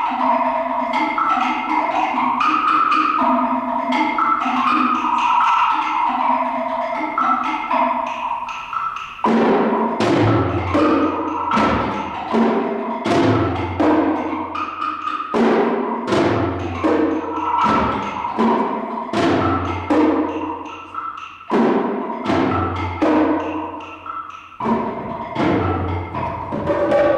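Percussion ensemble playing. Quick ringing pitched strokes fill the first nine seconds or so; after that, deep drum strokes recur about once a second among sharp drum and cymbal hits.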